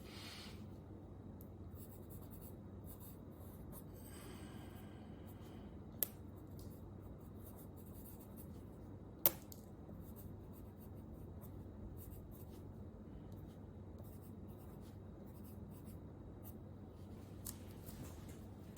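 Faint, repeated scratching strokes of a drawing tool on paper, with two sharp clicks about six and nine seconds in.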